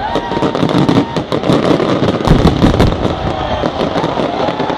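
Fireworks going off in a dense, continuous run of bangs and crackling pops, many per second.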